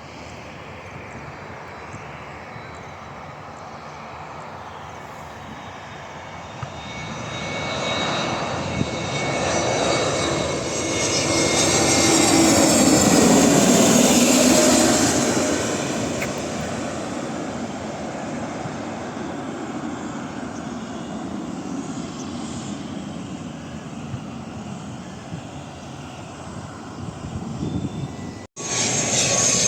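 A landing airliner's engines pass close by. The sound swells to a peak about halfway through, the pitch falls as the aircraft goes past, and it then fades. Near the end it breaks off abruptly and a louder aircraft sound starts.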